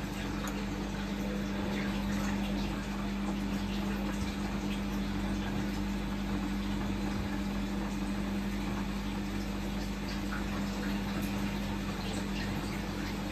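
Siemens Siwamat XS 1060 front-loading washing machine running with a steady motor hum as the drum turns a wet load with some water in it. The load has largely wound itself up inside a tablecloth, so the drum is unbalanced.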